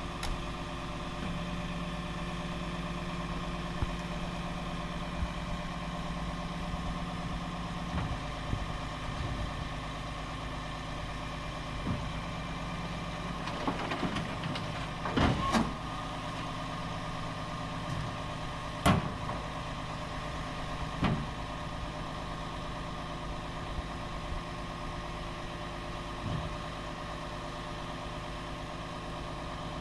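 The PACCAR PX-8 diesel, an 8.3-litre inline six, of a 2012 Peterbilt 337 dump truck idling steadily while the hydraulic dump box is raised and lowered. Several sharp knocks stand out over the idle, the loudest about halfway through and another a few seconds later.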